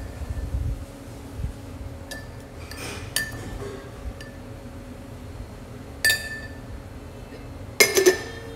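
Spoons and a lid clinking against glazed ceramic condiment pots: a few separate ringing clinks, then a quick cluster of louder clinks near the end as a ceramic lid is handled. A steady low rumble runs underneath.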